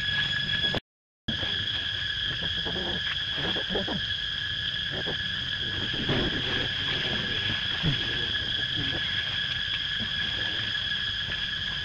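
A steady chorus of insects: a continuous high buzz held at a few fixed pitches. Under it, dry leaves rustle and crackle in short patches, and the sound cuts out completely for about half a second about a second in.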